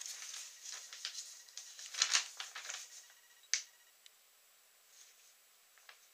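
A sheet of paper rustling and crackling as it is unfolded and handled, with a run of crackles over the first three seconds and one sharper crackle about three and a half seconds in.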